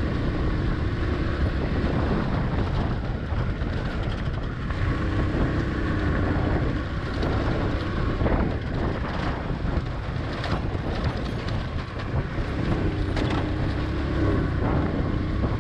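Honda CD70 motorcycle riding along, its small four-stroke single-cylinder engine running steadily under wind buffeting the microphone, with scattered clicks and knocks.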